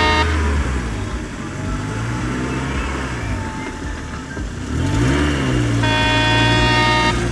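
Truck engine sound, revving up and down, for a toy crane truck driving through sand. A steady horn blast ends just after the start, and another sounds for over a second near the end.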